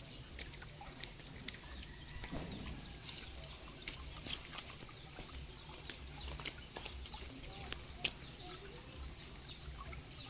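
Water trickling and dripping, with scattered sharp clicks over a steady high hiss.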